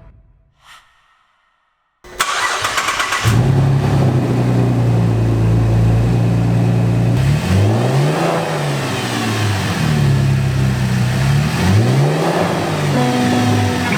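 A 2010 Chevrolet Camaro's 3.6-litre V6 starting about two seconds in, with a brief clattering crank. It settles into a steady idle, then is revved twice, the pitch rising and falling, near the middle and near the end.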